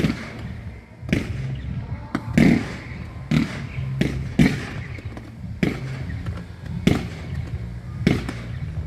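Aerial firework shells bursting in a steady series: about seven sharp bangs, roughly one a second, each with a short echo.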